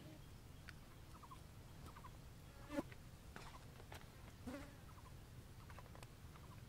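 Near silence: a faint low background rumble with a few short, faint chirps and light ticks scattered through it.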